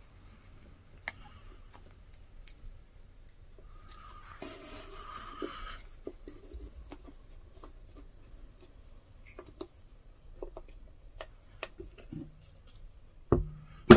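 Small metal snap-fastener parts and leather being handled as a snap is fitted to a leather sheath: scattered faint clicks and a soft rustle. Near the end a sharp knock as a mallet first strikes the snap setter.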